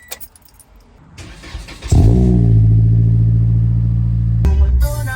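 Car engine started with the ignition key: a click, about a second of cranking, then the engine catches about two seconds in with a short rising rev and settles to a steady idle. Music from the car stereo comes on near the end.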